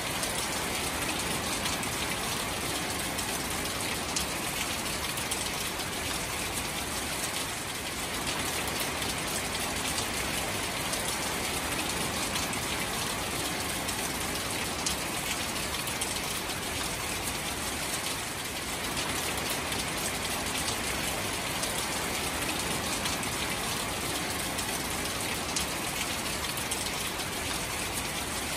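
Steady rain falling onto shallow standing water among reeds and grass: an even, unbroken sound of drops striking the water surface.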